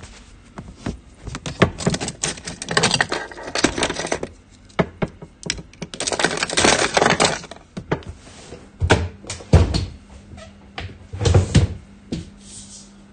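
Handling noise close to a phone's microphone: irregular clicks, clatter and rustling as a watch case and cabinet are handled, with two heavier thumps in the second half.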